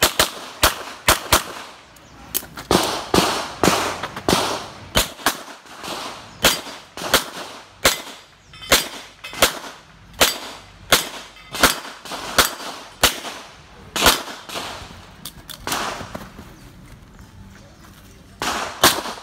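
A string of gunshots from a firearm being fired on a shooting range, sharp cracks about one to two a second, some in quick pairs, each with a short echo. There is a brief pause near the end before the shots resume.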